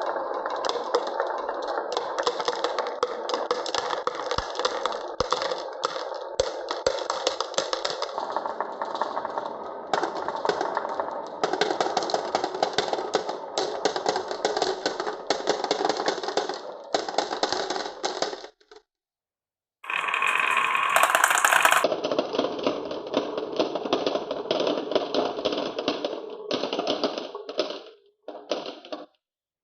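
Marbles rolling and clattering down a HABA wooden zigzag marble run: a continuous, dense rattle of rapid clicks. It breaks off for about a second a little past halfway, comes back louder, then thins out and stops near the end.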